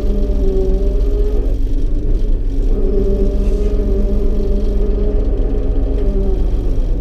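Yenisei combine harvester's diesel engine running steadily, heard from inside the cab while driving. Its note dips briefly about a second and a half in and again near the end.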